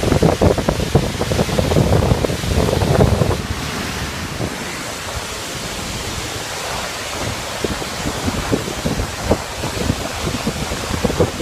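Roar of a waterfall heard from right beside the falling water, with wind and spray buffeting the microphone. The buffeting is heaviest in the first few seconds, eases to a steady rushing hiss in the middle, and picks up again near the end.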